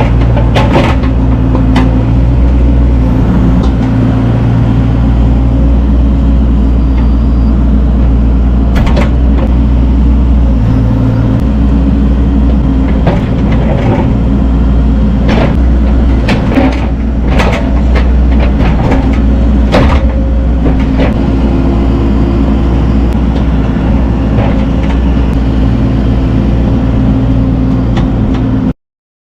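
Caterpillar 305E2 mini excavator's diesel engine running steadily under work, with scattered sharp knocks and clanks of the bucket working boulders. The sound cuts off abruptly just before the end.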